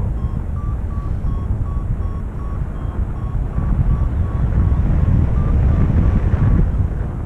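Wind rushing over the microphone in flight, stronger in the second half, with a paragliding variometer beeping about three times a second, its pitch shifting slightly. The rapid beeps are the vario's signal of climbing in lift.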